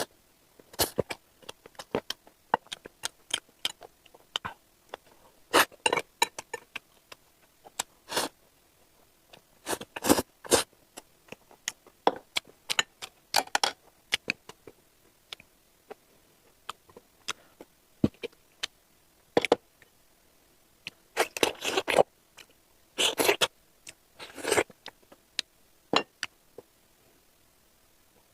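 Close-miked eating sounds: irregular short bursts of chewing and mouth noises with sharp clicks, spaced by brief quiet gaps.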